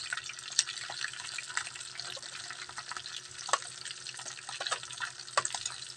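Fish pieces sizzling and crackling in hot oil in a frying pan as they are turned with a metal spatula, with a few sharper pops from spattering oil.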